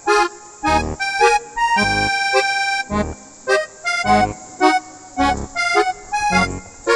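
Background music with a steady beat and held, reedy melody notes.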